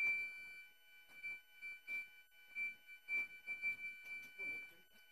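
A steady high-pitched electronic tone that swells and fades irregularly, with faint scattered knocks and taps.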